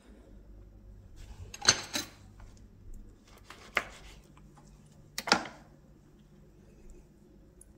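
A kitchen knife slicing a lemon on a wooden cutting board: a handful of short, sharp knocks of the blade against the board, spaced a second or so apart.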